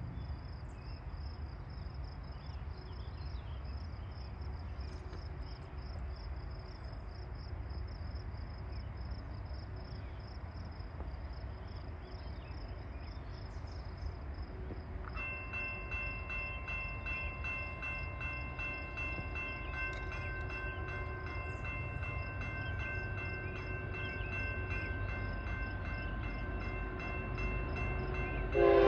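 A railroad crossing warning bell starts ringing about halfway through, with repeated regular strikes, over a steady insect trill and the low, slowly growing rumble of an approaching CSX intermodal freight train. Right at the end the locomotive's horn starts blowing, much louder than everything before it.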